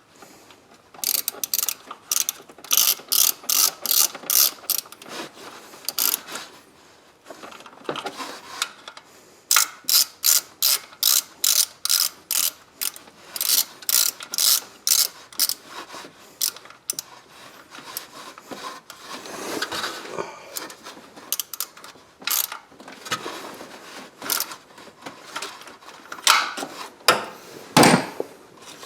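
Hand ratchet wrench clicking in repeated short runs of back-and-forth strokes, with a few brief pauses between runs.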